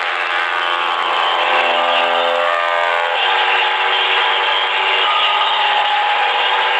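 Multi-tone vehicle horn held on a steady chord, switching to a different chord about three seconds in.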